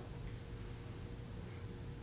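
Faint soft sounds of a person chewing food, over a low steady hum.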